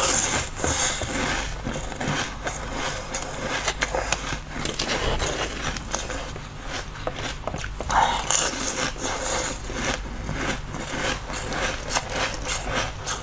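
Close-miked biting and chewing of a frozen white dome-shaped treat, with many quick crunches and crackles.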